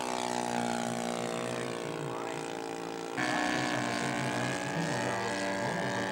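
Model aircraft engine, a Laser V200 four-stroke V-twin glow engine in a scale Fokker E.III Eindecker, running on a low overshoot pass. Its pitch sags slightly at first, then steps abruptly higher and louder about three seconds in.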